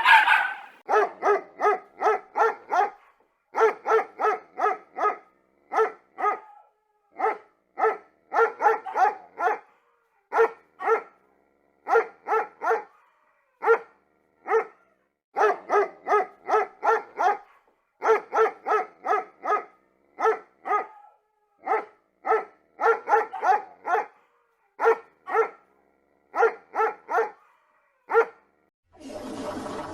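Small dog yapping: short, high-pitched barks in quick runs of three to six, with brief pauses between runs.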